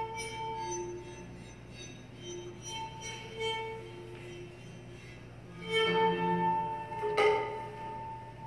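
Slow music of long, held bowed-string notes, growing louder about six seconds in, with a sharp knock just after seven seconds.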